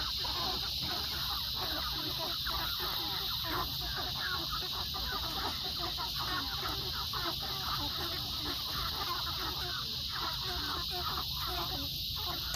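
A flock of meat chickens clucking and chattering together, dense and continuous with no pauses.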